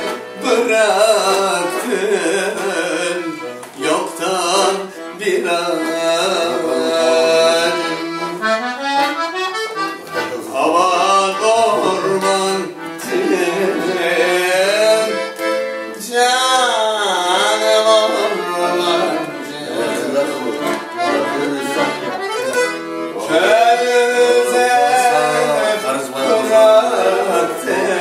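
Piano accordion playing an instrumental melody, several notes sounding together and moving through short phrases.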